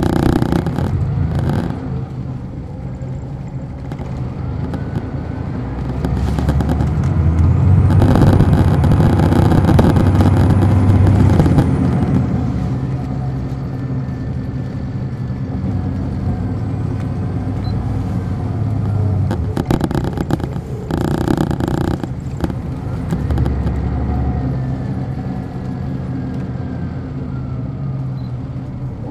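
Detroit Diesel Series 60 engine of a 2002 MCI D4500 coach, heard from on board the moving bus. It pulls louder from about six seconds in, eases off around twelve seconds, then runs on steadily, with rattles and clatter from the coach body.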